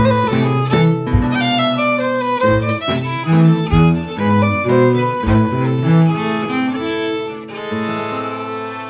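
Violin, cello and acoustic guitar playing the closing bars of an instrumental folk tune, with a few low thumps from a foot-pedal beater on a wooden box. About three-quarters of the way in they settle on a final held chord that slowly fades.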